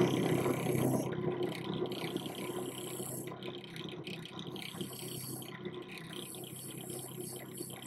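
Bench drill spinning a wire cup brush, its bristles scraping against a small metal plate held to it to strip rust and old finish. It is louder for the first second, then runs on as an even scratchy hiss.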